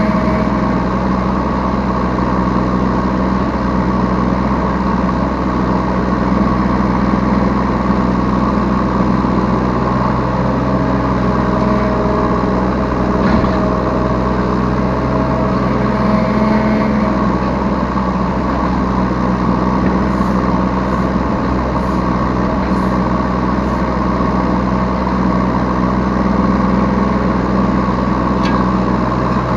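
Yanmar B3 Sigma 3-ton mini excavator's diesel engine running steadily under work, heard from the operator's seat, with a couple of light knocks.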